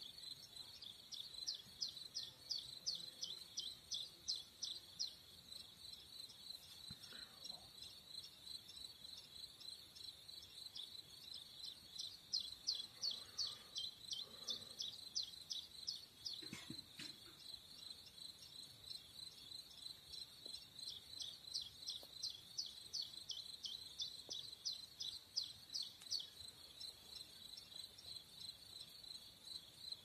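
Crickets chirping in a grassy meadow: a steady high-pitched trill, with a nearer one pulsing at about four chirps a second that grows louder for stretches near the start and through the middle.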